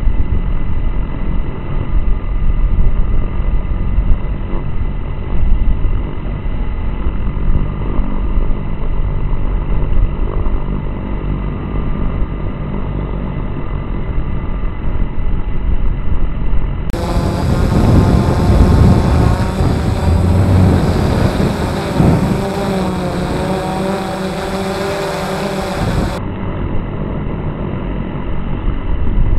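Multirotor camera drone's propellers and motors buzzing steadily, heard from the drone's own onboard camera. For several seconds past the middle the motor whine climbs and dips as the drone's motors change speed.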